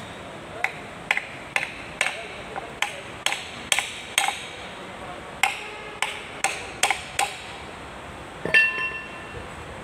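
Hand hammer tapping in a series of over a dozen sharp knocks, about two a second, with a short pause midway. About eight and a half seconds in comes a louder metallic clank with a brief ring.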